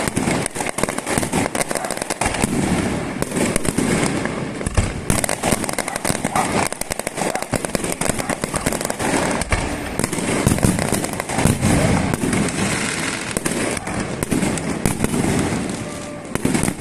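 Fireworks and firecrackers going off in a rapid, continuous string of sharp bangs and pops.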